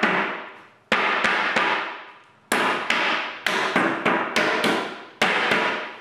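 Wooden mallet knocking the finger joints of a plywood box together for a dry fit. Sharp knocks come in three quick runs, about three a second, each knock with a short ringing tail from the box.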